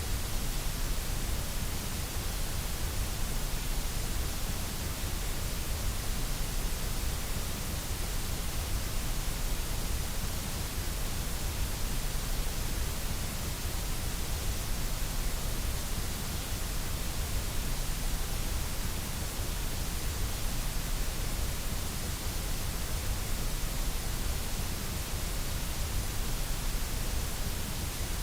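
Steady synthetic white noise: an even, unchanging hiss with a low rumble under it, level throughout.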